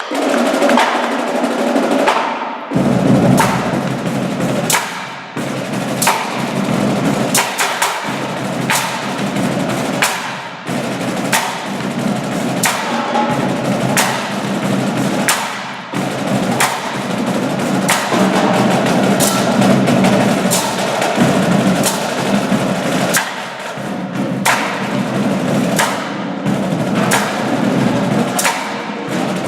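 Marching drum line playing: rapid snare drum patterns with sharp rim clicks and rolls over pitched bass drums, which come in strongly about three seconds in.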